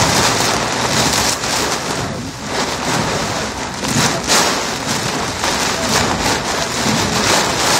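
Heavy thunderstorm downpour hammering a car's windshield and body, heard from inside the cabin as a loud, dense rush of rain that swells and eases in surges.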